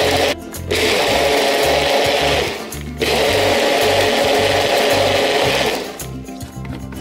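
Personal bullet-style blender running through a milky liquid in three bursts. The motor stops briefly about half a second in and again just before the three-second mark, then cuts out about a second before the end.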